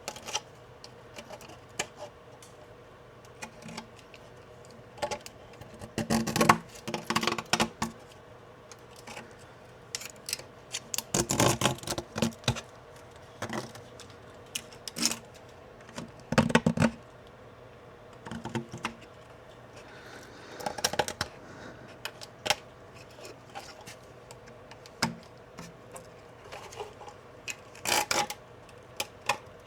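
Deburring tool scraping and clicking along the edges of a 3D-printed plastic part, in irregular bursts with knocks as the part is handled, over a faint steady hum.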